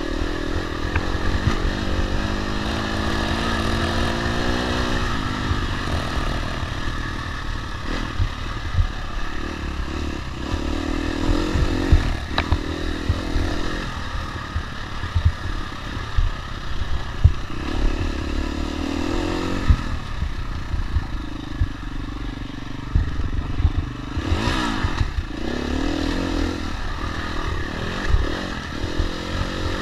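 Dirt bike engine revving up and down over and over as it is ridden hard along a rough trail, with many sharp knocks and clatter from bumps throughout.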